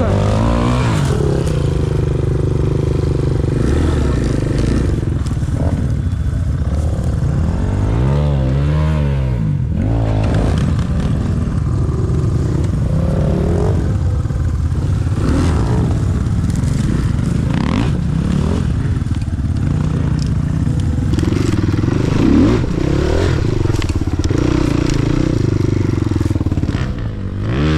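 Enduro motorcycle engine running under load off-road, its pitch rising and falling as the throttle opens and closes. There is a sharp rev up and back down about eight seconds in, and another near the end.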